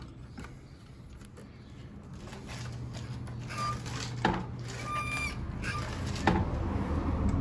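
Hand tools clicking and knocking against metal while a motorcycle's clutch cable is loosened at its guide, with a low steady hum behind and a couple of short high squeaks.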